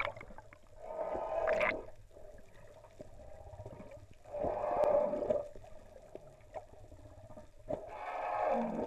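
Humpback whale calling underwater: three drawn-out calls, each about a second long, spaced a few seconds apart, over the low rumble of the water.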